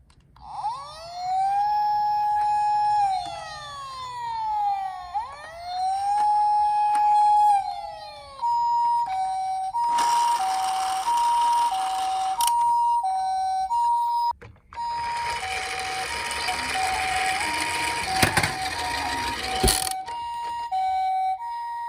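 Emergency-vehicle siren: a wail that rises, holds and falls twice, then switches about eight seconds in to a steady two-tone hi-lo siren of the Japanese ambulance 'pee-po' kind. Two long stretches of rushing noise sound along with the hi-lo tone.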